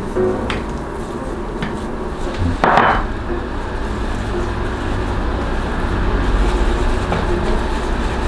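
A wooden spoon knocks twice against a glass mixing bowl. A brief loud clatter follows a little under three seconds in, then a low steady hum.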